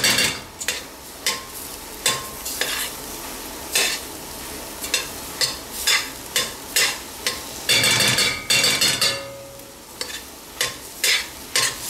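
A spoon scraping and knocking around a stainless-steel pot in irregular strokes, stirring sliced mushrooms and flour, with a faint sizzle underneath. The sound is the flour being toasted with the mushrooms over medium heat.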